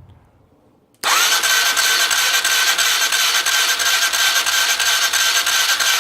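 Kawasaki Sherpa 250's single-cylinder four-stroke engine being cranked on its electric starter, turning over with a fast, even beat and a steady starter whine but not firing. It starts suddenly about a second in.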